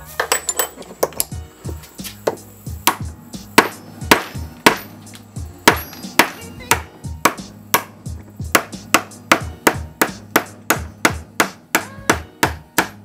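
Repeated hammer taps on a steel rod set down through a white acetal frame slider, sharp separate knocks about two a second that quicken to about three a second in the second half.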